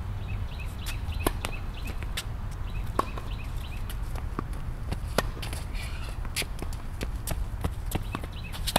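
Tennis rally on a hard court: sharp racket strikes on the ball about every two seconds, with ball bounces and footsteps between, over a steady low rumble.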